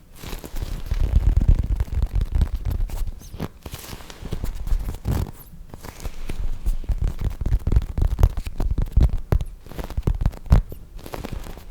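Soft foam squishy toys squeezed and rubbed right against the microphone, giving a dense, irregular run of soft thumps, crackles and scratchy rustling.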